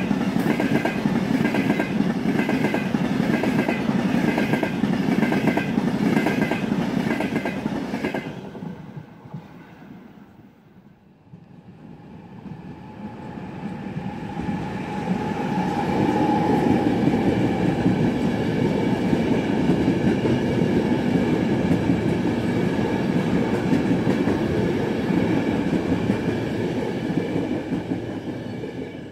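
A Frecciabianca passenger train passes close by, its wheels clicking in a steady rhythm over the rail joints, cut off abruptly about eight seconds in. After a quiet gap, an E464 electric locomotive hauling a regional train approaches and passes, building to a loud, steady rumble that lasts to the end.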